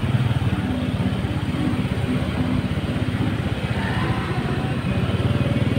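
Motorcycle engine running steadily at low speed, close by, with a fast, even firing rhythm.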